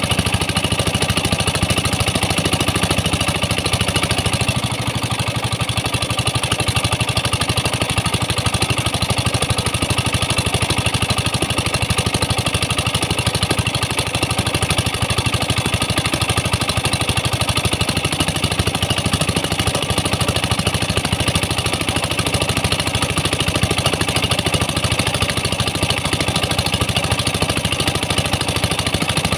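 Pump engine running steadily at a constant speed, driving high-pressure hoses that jet water onto the sand, with the spray hissing alongside.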